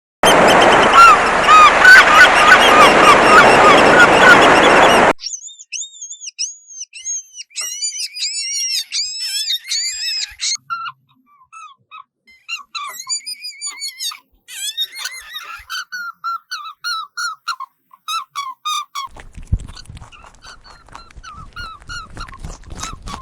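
Many birds chirping: first a loud, dense chorus of short arched chirps for about five seconds, then sparser runs of rising-and-falling chirps and quick repeated cheeps with short gaps.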